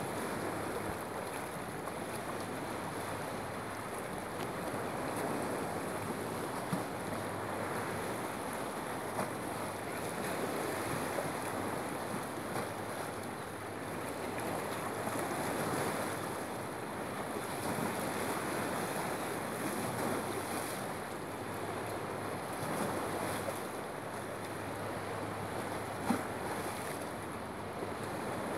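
Lake Huron water washing against the pier with wind on the microphone: a steady rushing that swells and eases slowly, with a few faint knocks, the sharpest near the end.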